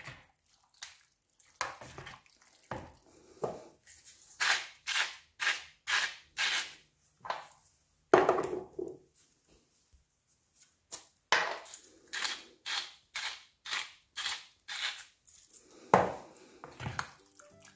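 Hand-twisted spice mills grinding over a bowl: two runs of short rasping crunches, about two a second, from one mill and then another, each run ending in a knock as the mill is set down on the worktop. A few faint spoon scrapes in the bowl come before.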